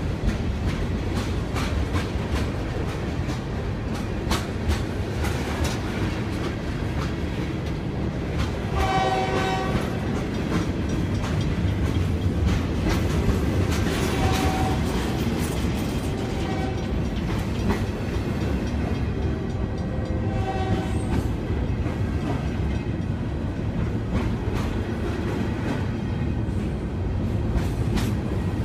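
Freight cars rolling past at close range over a grade crossing: a steady rumble with wheel clatter and clicks over the rail joints. A few brief pitched squeals stand out about 9, 14, 16 and 20 seconds in.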